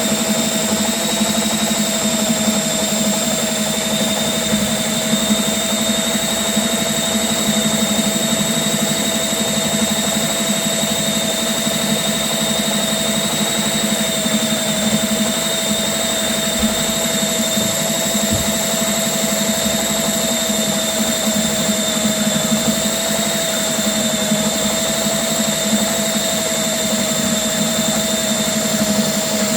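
Gold Snake GS6/30 flex-shaft drain cleaning machine running steadily, a constant high whine over a low motor hum as the spinning shaft works through the sewer pipe.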